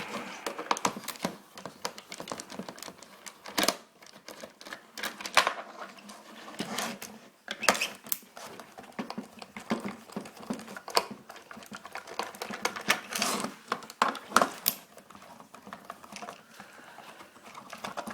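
Screwdriver taking screws out of an old house phone's casing: irregular clicks, taps and scrapes of the tool and screws against the phone.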